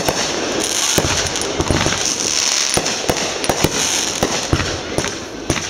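Aerial fireworks bursting in quick succession: repeated sharp bangs about twice a second over a continuous noisy haze.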